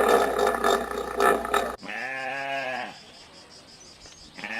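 A loud, rough animal call cuts off abruptly, then a single wavering bleat of about a second follows. A second bleat begins near the end.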